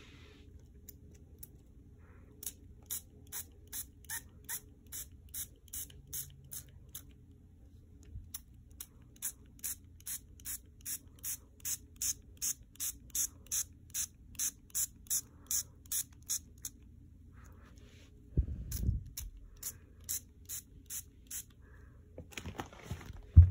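Small hand-sanitizer spray bottle pumped over and over, short hissing puffs about two or three a second, with a brief pause partway. Near the end a low thud and then a sharp knock.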